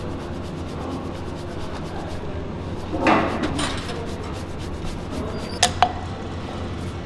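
Paneer being rubbed down a metal box grater in quick, even strokes, then a short loud scrape about three seconds in, and a knife clicking twice against a wooden chopping board near the end, over a steady kitchen hum.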